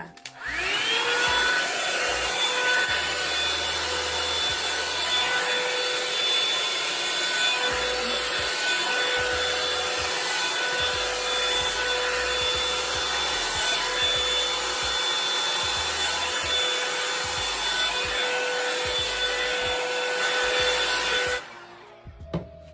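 Revlon hot-air hair dryer brush switched on, its motor whine rising quickly to a steady pitch over rushing air, then running steadily and cutting off suddenly near the end.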